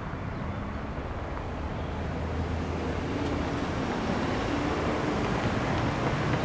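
Road traffic: cars driving through an intersection, a steady rush of tyre and engine noise that grows slowly louder toward the end.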